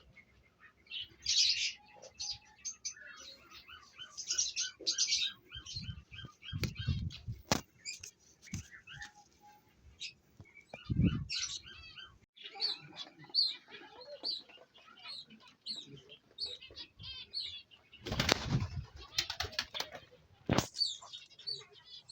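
Caged pet birds chirping and calling over and over, with several loud bursts of wings flapping: about six seconds in, again around eleven seconds, and a longer flurry near eighteen seconds.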